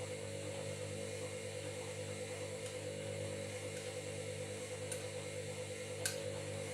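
Washing machine running with a steady motor hum, with a couple of light clicks near the end.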